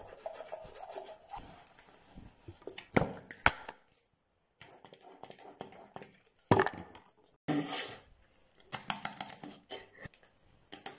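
Toothbrush scrubbing teeth, then hands rubbing foaming face cleanser into a lather and onto the face, in irregular rubbing and scratching bursts with a few sharp clicks. The sound drops out briefly about four seconds in.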